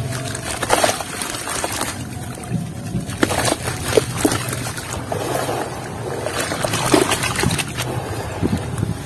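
A lump of wet red clay being crumbled by hand into a basin of muddy water, with crumbs and chunks plopping and splashing in, then hands swishing and sloshing through the muddy water near the end.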